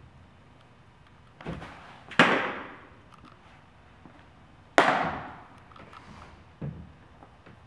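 Two sharp pops of a baseball smacking into a leather glove, about two and a half seconds apart. Each rings out in the metal-walled building, with a lighter knock just before the first.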